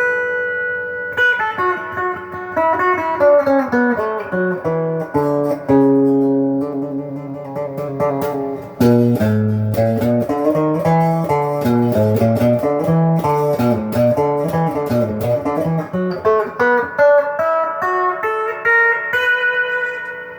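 Miller Les Paul–style clone electric guitar on its stock bridge pickup, playing a melodic run of picked single notes that moves up and down, with a held note near the end.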